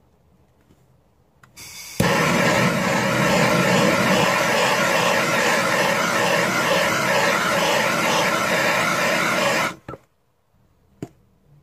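Electric heat gun switched on and blowing steadily for about eight seconds, then switched off abruptly, as it shrinks waterproof heat-shrink crimp connectors so that they seal around the wire. A short click follows about a second after it stops.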